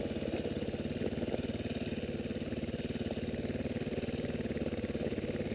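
Off-road motorcycle engine running at a steady, low throttle with no revving.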